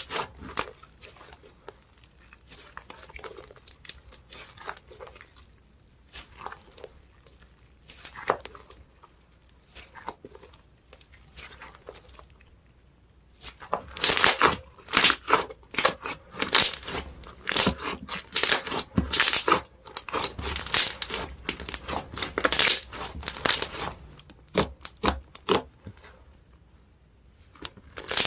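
Sticky, tacky slime being pressed, stretched and squished by hand, giving off clicks and pops. They are sparse and soft at first, then come thick and loud from about halfway through, ease off, and start again at the very end.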